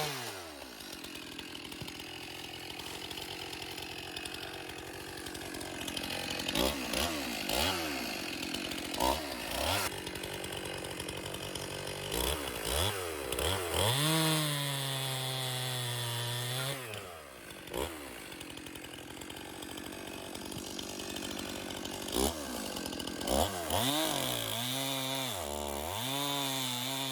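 Stihl two-stroke chainsaw revving up and down between idles while test-cutting wood with a freshly sharpened chain. About halfway through it is held at high speed for a few seconds, then drops back, and it is blipped several times in quick succession near the end.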